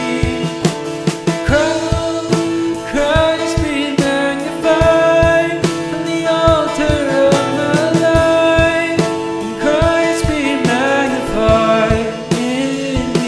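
Worship band playing: a voice singing long, wordless lines over steady guitar chords and drum hits.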